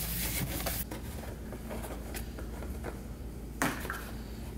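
Cloth shop rag rubbing and wiping against a car's oil pan for about a second. Then low background noise with a few light taps, and one sharp plastic knock near the end as the plastic oil catch pan is handled.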